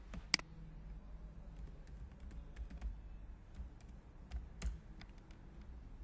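Computer keyboard typing: scattered keystrokes, with a sharp louder click about a third of a second in and another near the end.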